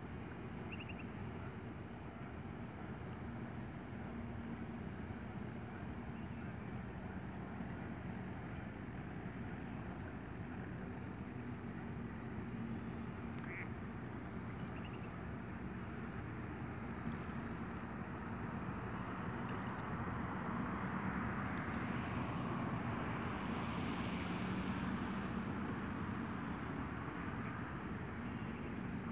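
Bascule drawbridge leaf rising, with a low steady hum and rumble from its lift machinery that swells about twenty seconds in. Insects chirp in a steady, even pulse over it.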